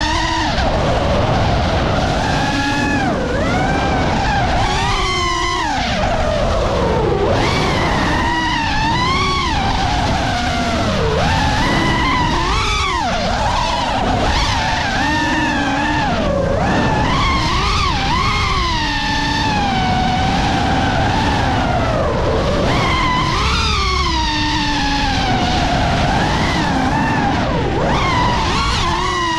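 5-inch FPV freestyle quadcopter's brushless motors and propellers whining, the pitch sweeping up and down every second or two as the throttle is punched and cut through flips and turns, over a low rumble of wind and prop wash.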